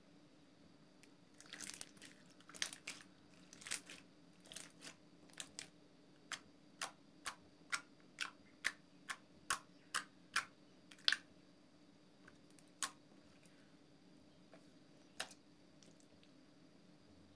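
Transparent soap-and-water slime being pressed and kneaded by hand, giving sharp clicks and pops. The clicks come thickly at first, settle into about two a second, then thin out to a couple of single pops near the end.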